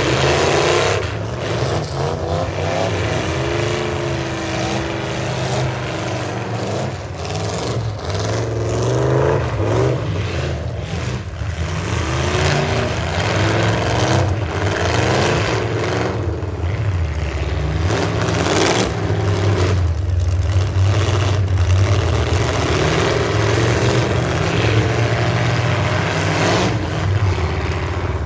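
Several demolition derby trucks' engines revving up and dropping back over and over, with the sharp crunch of trucks ramming into one another now and then.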